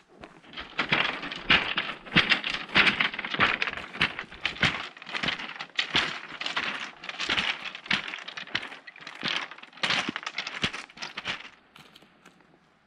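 A hiker's footsteps, about one and a half steps a second, each step a dense crackle of small clicks and scrapes on a loose surface, stopping shortly before the end.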